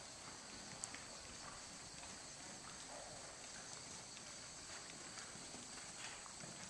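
Faint hoofbeats of a horse trotting on arena sand, over a steady high hiss.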